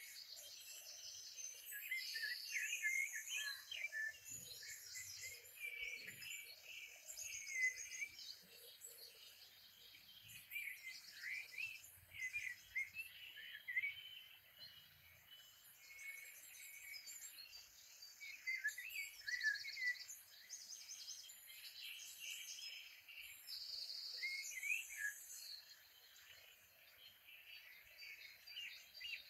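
Nature-sounds background of many birds chirping and singing, with rapid high buzzy trills from birds or insects mixed in throughout.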